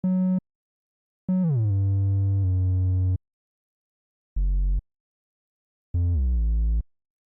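Short chopped sample slices played back one at a time: four bursts of a low synth-like pitched sound, each cut off abruptly with dead silence between. The second and fourth slices drop in pitch at their start.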